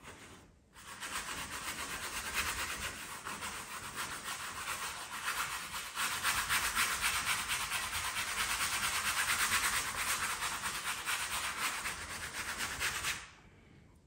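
Wide flat bristle brush scrubbing thinned oil paint onto a stretched canvas: a dry, raspy rubbing in many quick strokes, starting about a second in and stopping shortly before the end.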